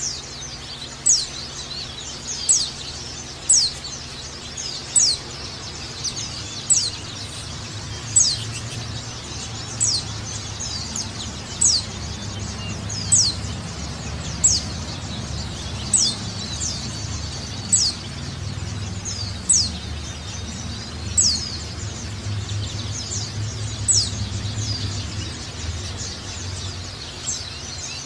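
A white-eye (pleci) giving its 'ngecal' call: a short, sharp, high note that drops quickly in pitch, repeated about once every second and a half. A low steady hum runs underneath.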